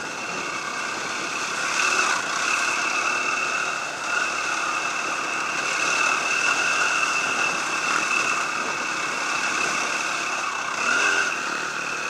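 Dirt bike engine running steadily under way, heard from a camera mounted on the bike, with wind noise on the microphone.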